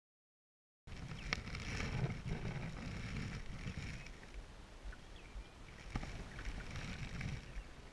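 Silence for about the first second, then a Selway Fisher Wren canoe being paddled: water splashing and lapping at the paddle and hull, with wind on the chest-mounted camera's microphone. Two sharp knocks stand out, about a second in and near six seconds.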